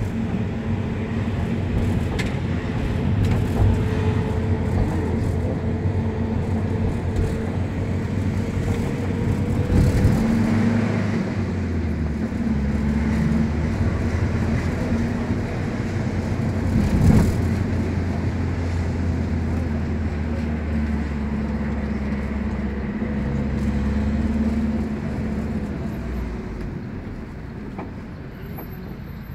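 City bus heard from inside the passenger cabin: the engine hums steadily under road rumble. The hum changes pitch a couple of times, and the whole sound grows quieter over the last few seconds.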